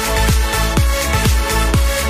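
Electronic dance music with a steady, regular kick-drum beat under sustained synth tones, without vocals at this point.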